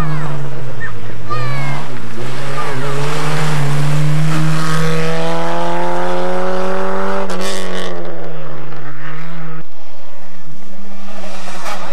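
A competing hatchback rally car's engine revving hard under acceleration. Its pitch climbs steadily for a few seconds and drops sharply at a gear change about seven seconds in. The sound cuts off abruptly a couple of seconds before the end.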